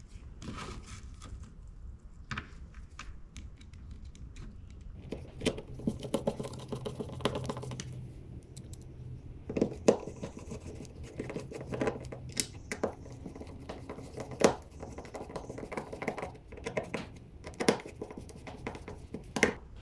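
Hands fitting a light socket back into place: scattered clicks, scrapes and knocks of small hardware being handled, with a low hum for several seconds in the middle.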